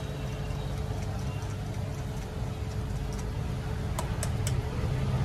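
Hard cheese being grated by hand with a small metal grater over a sandwich, with a few light clicks of the grater about four seconds in, over a steady low rumble of traffic.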